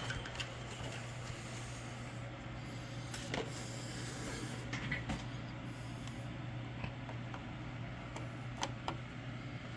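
Steady low hum with a few faint, scattered clicks and taps of hands handling small computer parts.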